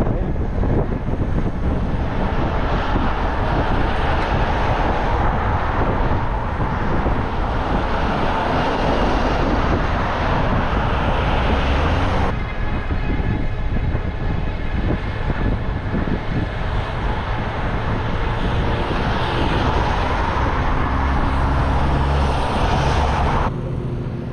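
Riding noise from a bicycle-mounted camera: wind rushing over the microphone and traffic passing on the road. The sound changes abruptly about halfway through and again near the end.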